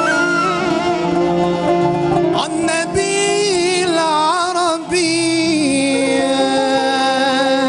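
A male soloist sings a wordless, ornamented vocal line of Algerian devotional song (madih) into a microphone, with the band accompanying. His melody winds up and down through the first few seconds, then settles into longer held notes.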